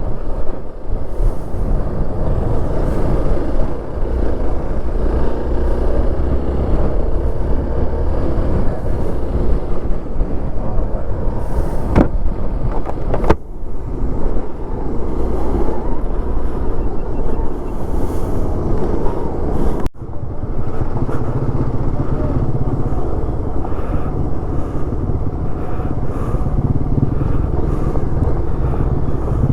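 Hero XPulse 200 4V motorcycle's single-cylinder engine running while riding, with wind noise on the microphone. The sound jumps abruptly about twelve and twenty seconds in.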